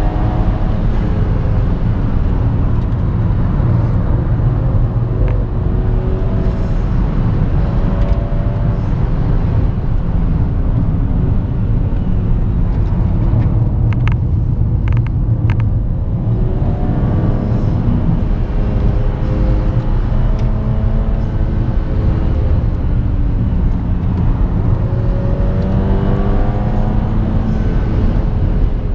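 Tuned Seat Leon Cupra 1P's turbocharged 2.0-litre four-cylinder engine and exhaust, heard from inside the cabin, pulling hard uphill, its pitch climbing and dropping through the gears. About halfway through the revs fall as the car slows for a bend, with a few short sharp clicks, then the engine pulls hard again.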